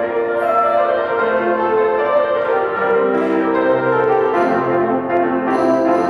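Church chamber orchestra of strings, woodwinds and brass playing a passage of a Christmas cantata in held, changing chords.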